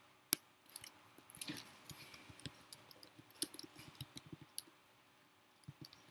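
Typing on a computer keyboard: irregular key clicks, with one sharp louder keystroke near the start and a pause of about a second near the end.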